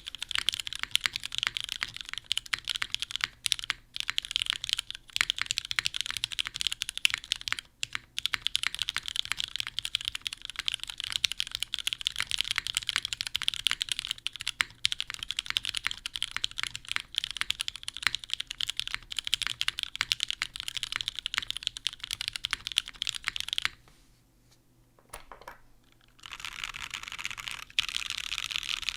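Typing on a Cruel World 88 mechanical keyboard with lubed Cherry MX Nixie linear switches on a polycarbonate plate and GMK ABS keycaps: a fast, steady run of key clicks. About three-quarters of the way through it stops for a couple of seconds, then starts again with rapid spamming of keys.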